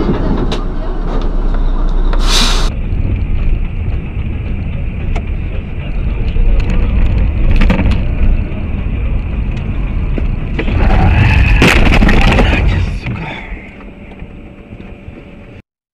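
Car on the move as heard by a dash camera: a steady low road-and-engine rumble broken by a few sharp knocks, with a louder noisy stretch near the end before it fades and cuts off suddenly.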